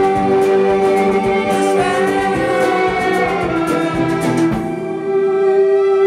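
Violin bowed in a live performance, several sustained notes layered together. The bowing stops near the end, and a steady held tone carries on beneath.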